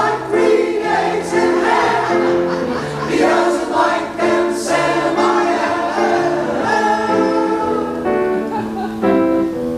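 Men's chorus singing with piano accompaniment: a continuous passage of held, changing notes.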